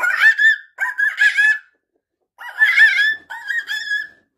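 High-pitched, warbling monkey-like chatter voicing the toy monkey, in four short bursts with brief pauses between.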